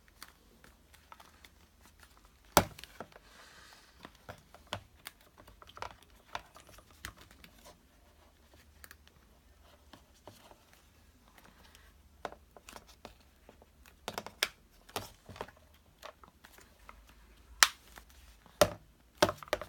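Plastic ear-pad ring clicking into place on a Jabra Revo headphone earcup, with handling and rustling of the foam pad between the clicks. A sharp click comes about two and a half seconds in and two more near the end; the clicks are the sign that the ring has latched and the pad is seated.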